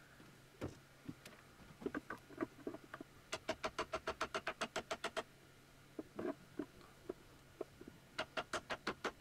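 A hand tool working at plastic cable clips fixed to a wooden cabinet: a few scattered clicks and scrapes, then two quick runs of even clicks, about seven a second, one in the middle and one near the end.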